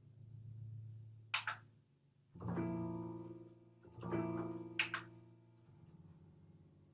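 Slow improvised music on a plucked string instrument: three low notes, each plucked and left to ring and fade, with two short bright scraping noises between them.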